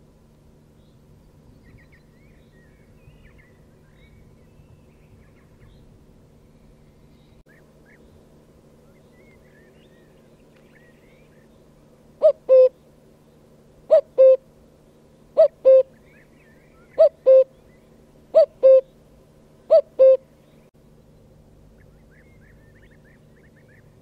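A cuckoo calls cuck-oo six times, each call a higher note falling to a lower one, at roughly one-and-a-half-second intervals, starting about halfway in.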